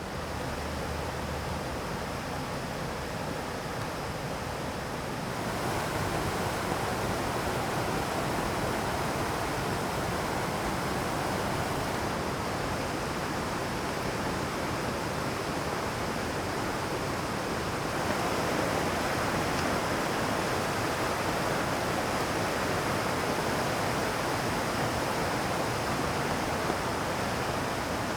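Mountain stream rushing over rocks, a steady rush of water that gets louder about five seconds in.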